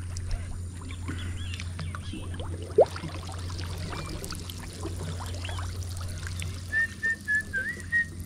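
Someone whistling a short run of notes that slide up and down, starting near the end, over a steady low hum and faint scattered chirps and clicks. A single short rising squeak, the loudest sound, comes about three seconds in.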